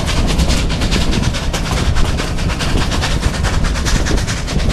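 Narrow-gauge steam train running, heard from an open car behind the locomotive: a fast, even string of sharp beats, several a second, over a heavy low rumble. The locomotive is working hard, throwing thick black smoke.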